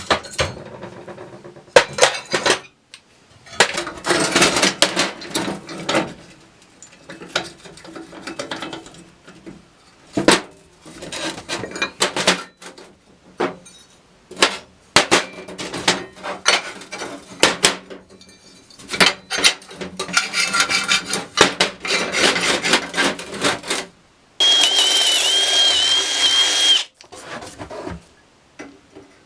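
Hand work at a workshop bench: scattered knocks, clinks and short scraping strokes. About 24 seconds in, a small electric power tool runs with a steady whine for about two and a half seconds, dipping in speed a few times, then stops abruptly.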